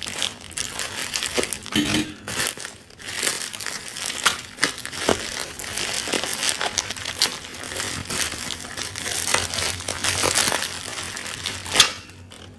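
Plastic bubble wrap crinkling and crackling as it is handled and cut open with scissors, with many small sharp crackles. A loud snap comes near the end, then the rustling dies down.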